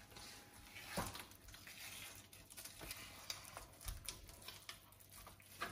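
Faint wet rustling and a few soft clicks as the skin is peeled off a raw, partly frozen fish fillet by hand on a cutting board.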